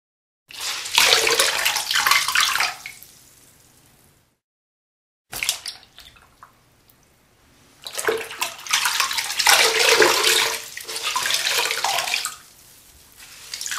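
Wet clothes being wrung out by hand, water splashing out of the fabric in several bursts, each trailing off into a thin trickle. There is a short silent break about four to five seconds in.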